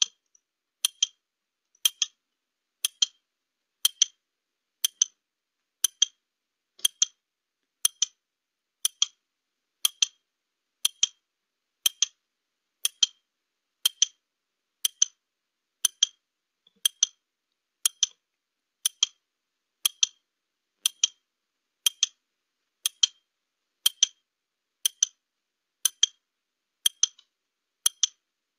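Clock-tick sound effect of a countdown timer: a short, sharp tick once a second, counting off a 30-second answering time.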